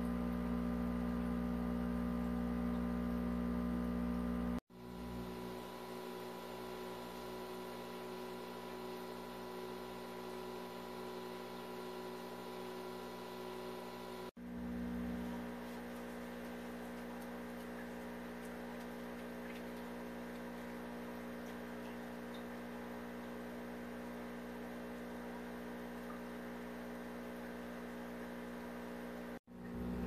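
Steady electric hum of aquarium pump equipment running the egg tumbler, broken by abrupt cuts about five and fourteen seconds in and again near the end, each followed by a slightly different tone and level.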